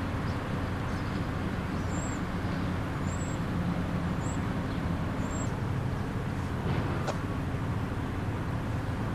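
Steady low rumble of outdoor traffic or vehicle noise, with four faint high chirps in the first half and a sharp click about seven seconds in.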